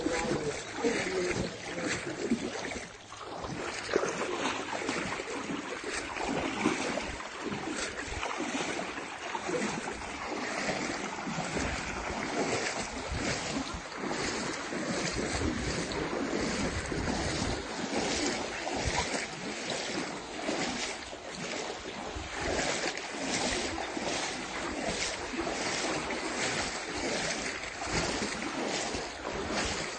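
Muddy floodwater splashing and lapping around a small boat moving through it, with wind noise on the microphone.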